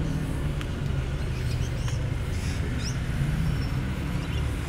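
Car engine running with a steady low rumble.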